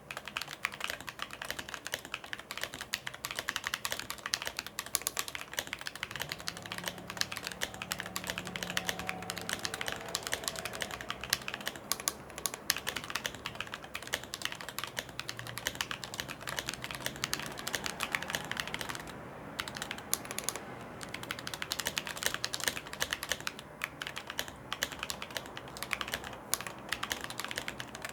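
Fast, continuous typing on a mechanical keyboard with anodized aluminium keycaps: a dense run of key clacks. The spacebar, filled with foam, is damped so it does not ping.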